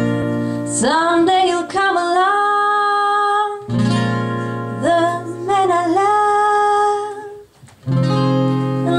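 A woman singing a slow ballad live into a microphone, holding two long phrases, over acoustic guitar chords struck at the start of each phrase.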